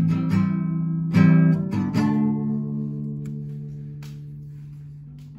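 Acoustic guitar strumming chords, a few strokes in the first two seconds, then one chord left to ring and slowly die away.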